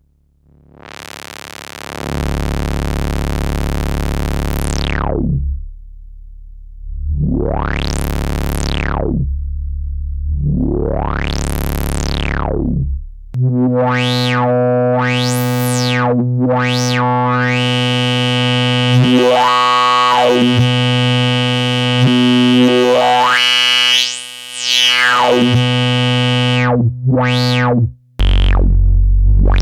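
A sustained modular-synthesizer tone run through a resonant MS-20-style low-pass filter, the Steve's MS-22. The cutoff is swept up and down again and again, so the sound opens into a bright, singing resonant peak and closes back to a dull hum. A couple of seconds in the tone fades up. About halfway through it switches to a richer, buzzier note and the sweeps come quicker, and the pitch drops to a lower note near the end.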